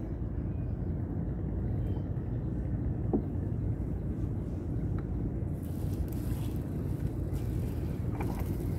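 Small boat engine running steadily at low revs, a constant low hum, with a few light knocks from the net being handled.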